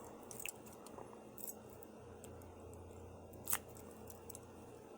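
Faint metallic clicks of the key working in a 50 mm laminated steel padlock, with one sharper click about three and a half seconds in, as the lock is opened with its own key.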